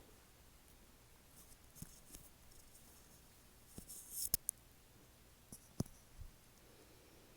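Faint scattered small clicks and soft rustles, with the sharpest tap a little over four seconds in.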